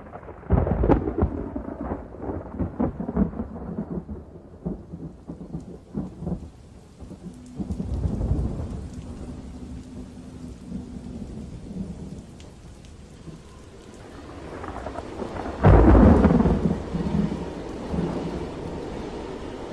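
Thunderstorm: rain with crackling thunder strikes in the first several seconds, then a rumble building into a loud thunderclap near the end.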